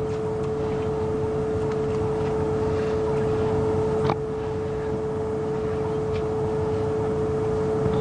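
Safari game-drive vehicle's engine idling steadily, a low rumble with a constant steady hum above it. A single click about four seconds in.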